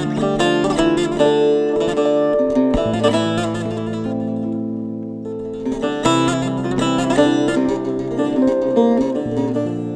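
Background music of plucked string instruments, guitar-like, playing a busy melody over sustained low notes.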